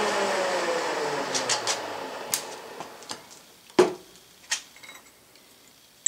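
Milling machine spindle coasting to a stop after a drilling pass, its hum falling in pitch and fading over about two seconds. Then scattered clicks and a sharp metal knock about halfway through.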